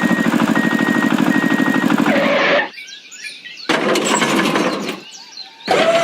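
A small engine running with a fast, even chugging, with three short high beeps over it. It cuts off after about two and a half seconds, and a hiss with a steady tone starts just before the end.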